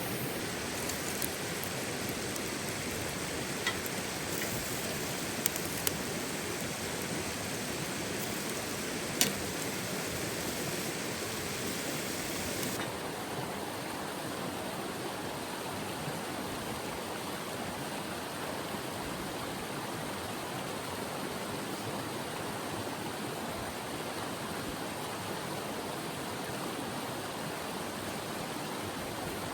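Mountain river rushing steadily, with a few sharp clicks in the first ten seconds, the loudest about nine seconds in. The hiss is brighter for the first dozen seconds, then turns duller.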